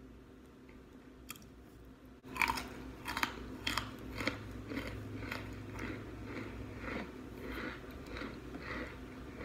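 A person biting into and chewing a frozen baked-pot chunk close to the microphone: a loud first crunch about two seconds in, then steady crunching chews about two a second.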